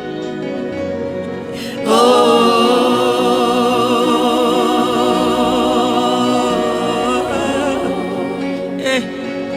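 Gospel worship music: a voice holds one long sung note with vibrato for about seven seconds, starting about two seconds in, over steady sustained instrumental backing.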